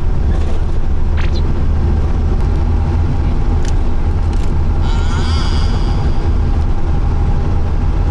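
Steady low rumble of a moving vehicle, heard from inside it, with a few light clicks.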